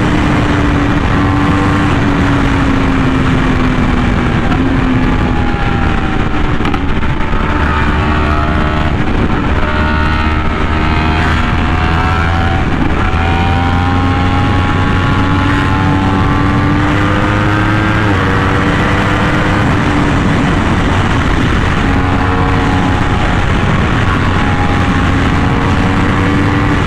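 Yamaha R1M's crossplane inline-four with an SC Project exhaust, running hard at road speed. The engine note climbs and falls with the throttle and changes step with gear shifts, over heavy wind rush.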